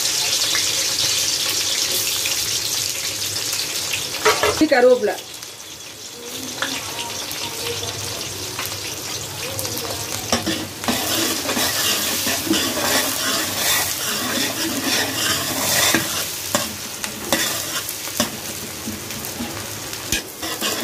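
Sliced onions frying in a large metal pot of hot oil, foaming and sizzling steadily, while a metal ladle stirs and scrapes against the pot. A brief louder burst comes about four seconds in; the sizzle then drops and builds again as the stirring goes on.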